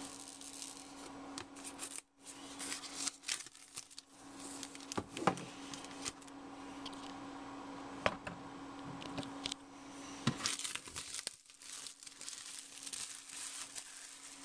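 Plastic shrink wrap being torn and crumpled off an iPad mini retail box: irregular crinkling and tearing with scattered sharp crackles, busiest after the first couple of seconds.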